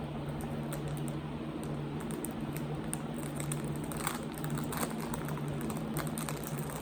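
Blind-box packaging being opened by hand: irregular crinkling, tearing and small clicks, busiest in the second half, over a steady low hum.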